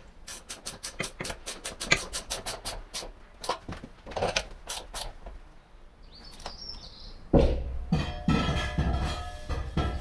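Background music: a fast, even run of sharp clicks for about the first five seconds, then a fuller passage with steady notes over a bass line from about seven seconds in, with a brief high chirp just before it.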